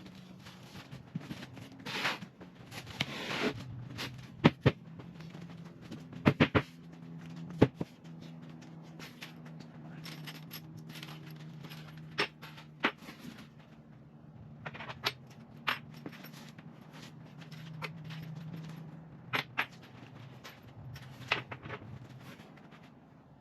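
Cordless drill or impact driver running in stretches as it drives screws through metal corner brackets into a plywood cabinet box, with sharp clicks and knocks of brackets, screws and tool against the wood; a quick triple of knocks about six seconds in is among the loudest.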